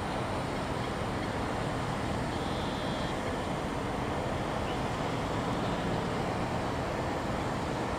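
Airbus A330-200 jet engines at idle thrust as the airliner taxis, a steady rumble.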